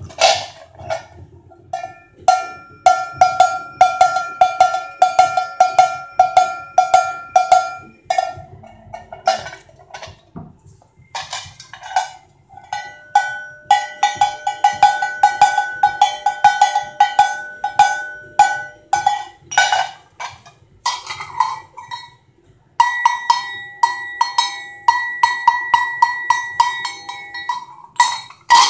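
Sheet-metal cowbells shaken by hand one after another, the clapper clanking against the shell in a fast, steady rhythm. Three bells are rung in turn, each with its own pitch, the last one the highest.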